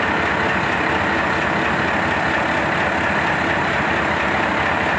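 Mitsubishi 8DC11 V8 diesel engine running steadily.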